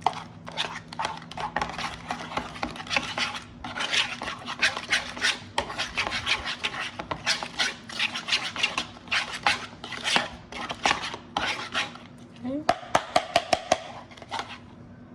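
A spoon stirring and scraping in a bowl, mixing mayonnaise with vinaigrette into a creamy dressing, in quick repeated strokes. Near the end comes a quick run of sharp taps.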